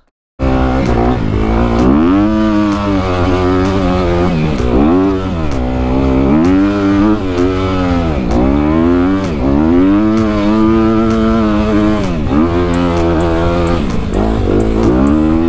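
Engine of a 2019 Honda CRF250 dirt bike, a four-stroke single, being ridden hard on a climbing trail. The throttle opens and closes again and again, so the engine pitch rises and falls every second or two. It cuts in suddenly about half a second in.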